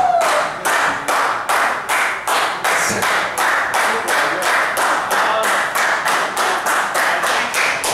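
Small crowd clapping in unison in a steady rhythm, about two to three claps a second.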